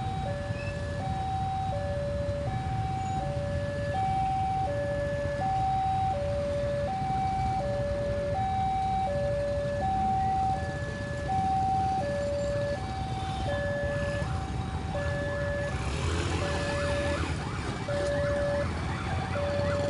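Indonesian railroad crossing alarm sounding a steady two-tone electronic signal, high and low tones alternating about every 0.7 seconds. Underneath is a low rumble of motorcycle engines, with engines revving up as motorcycles pull away about 16 seconds in.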